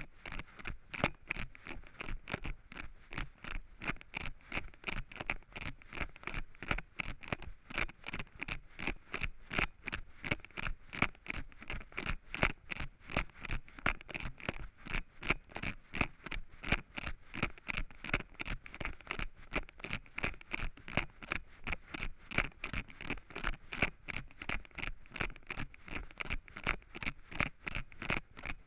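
Running footsteps crunching through dry fallen leaves on a forest trail, in a quick steady rhythm of about three steps a second.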